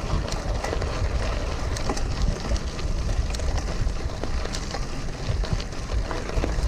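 Bicycle rolling along a road with wind buffeting the microphone in a low rumble, and scattered sharp ticks and clicks from the tyres and bike.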